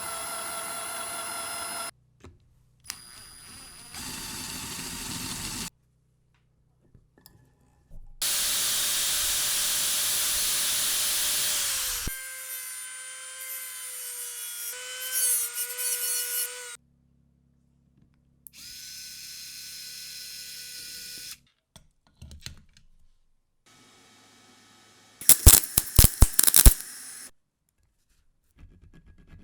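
Short, cut-together clips of a small electric power tool cleaning rust off revolver metal. It whines steadily and its pitch sags under load, with a loud hissing stretch in the middle. Near the end comes a quick cluster of sharp clicks.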